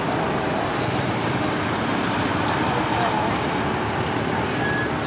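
Steady road-vehicle or traffic noise, an even rumbling hiss, with a faint voice about halfway through and a few short high-pitched chirps near the end.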